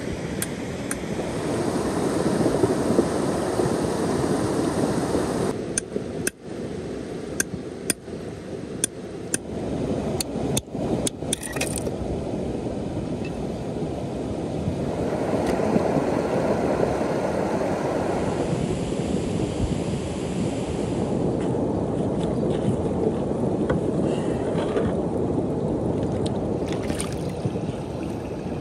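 Steady rushing of a shallow stony river. About a third of the way in comes a run of sharp clicks and knocks that lasts a few seconds.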